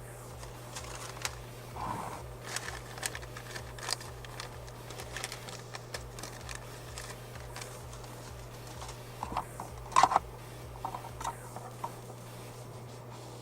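Hands handling and routing a bundle of wires with cable-tie straps: scattered light clicks and rustles, with a sharper knock about ten seconds in, over a steady low hum.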